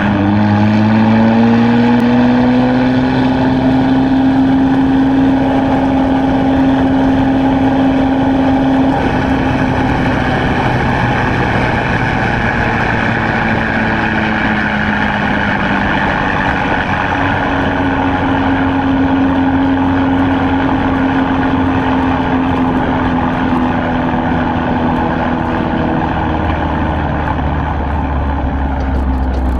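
2016 Chevrolet Camaro RS engine heard through its Borla ATAK axle-back exhaust while driving. The note climbs right at the start, holds steady, dips and picks up again about halfway, then drops lower near the end.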